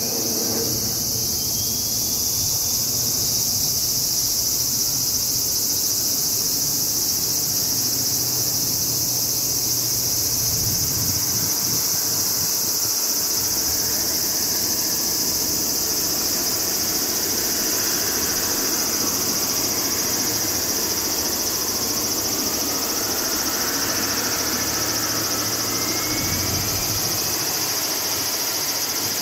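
Leonardo AW139 helicopter starting up on the ground: its twin turboshaft engines whine as the main rotor begins to turn, with whines rising in pitch in the second half as the engines spool up. A steady high-pitched buzz sits over it.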